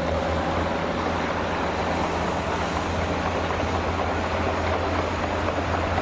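A dump truck's diesel engine running steadily while its raised bed tips out a load of sand: a constant low hum with a few steady tones, unchanging throughout.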